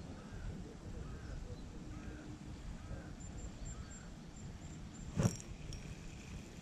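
Steady low outdoor rumble with faint short chirps, and one sharp click about five seconds in.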